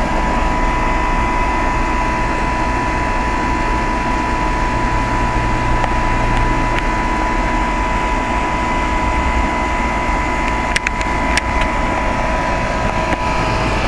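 Carrier 3-ton heat pump outdoor unit running steadily in cooling mode: compressor and condenser fan giving an even hum with a steady whine. Two short clicks come about eleven seconds in.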